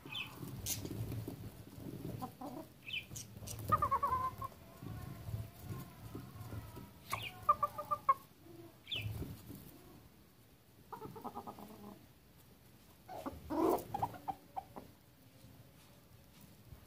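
Roosters clucking as they feed together, with short bursts of low, pitched calls about four times. Brief high chirps come in between.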